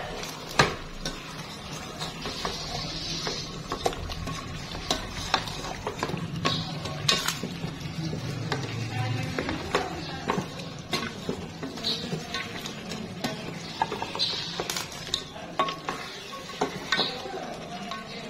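Chicken pieces with ginger and onion being stirred in a pot, the cooking spoon scraping and knocking irregularly against the pot over a light sizzle as they sauté.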